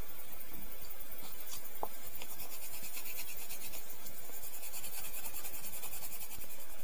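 Steel blade of an Ontario RAT-1 folding knife rubbed by hand against the flat face of a felt polishing wheel loaded with polishing paste: a steady, scratchy rubbing made of quick, even strokes.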